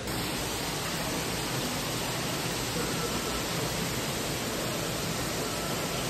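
Steady rushing hiss of water running in a large indoor fish tank.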